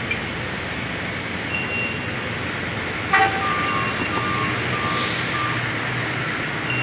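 Hi-rail maintenance-of-way truck's diesel engine running steadily as it rolls along the track, with short intermittent warning beeps. About three seconds in there is a short sharp toot followed by four quick beeps, and a brief air hiss about five seconds in.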